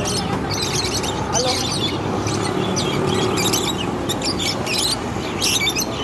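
A flock of caged budgerigars chirping and chattering, many short high chirps overlapping all through, over steady background noise.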